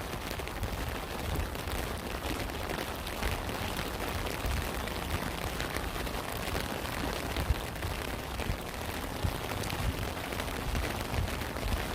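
Steady rain falling, with many fine separate drop hits over an even hiss and an uneven low rumble underneath.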